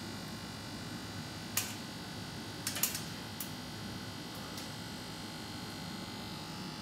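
Steady background hum of a workroom with a few short, sharp clicks and taps, a quick cluster of them near the middle, as hand work goes on at a clay sculpture.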